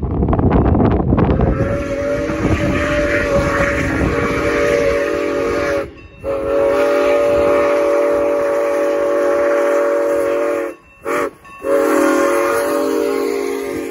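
Steam locomotive's chime whistle blowing two long blasts, one short blast and a final long blast, the long-long-short-long pattern of the grade-crossing signal, as the train approaches. A low rumble comes before the whistle starts.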